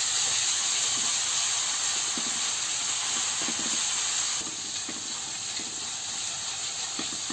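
Ginger-garlic paste sizzling in hot oil in an aluminium kadai while a spatula stirs it: a steady frying hiss with a few faint scrapes of the spatula on the pan. The hiss drops slightly about four and a half seconds in.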